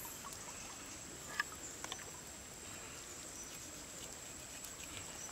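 Quiet handling sounds of a snake's skin being peeled back by hand over a wet log: a few soft clicks, about a second and a half and two seconds in, over a low steady hiss.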